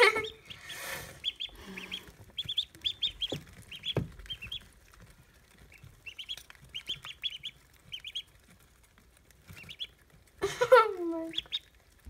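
Pekin ducklings peeping: clusters of short, high, rapid peeps. Near the end a person's voice gives a louder exclamation that slides downward in pitch.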